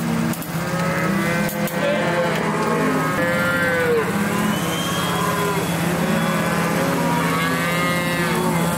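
Several calves bawling over one another in long calls that rise and fall in pitch, with a steady low hum underneath.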